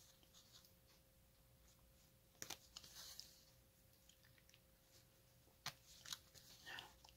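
Near silence with a few faint ticks and rustles of a needle and embroidery floss being drawn through stamped cross-stitch fabric, the clearest about two and a half and five and a half seconds in, over a faint steady hum.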